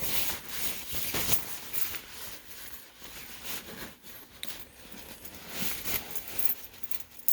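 Rustling and scraping with light irregular knocks, the noise of things being handled and moved about at close range.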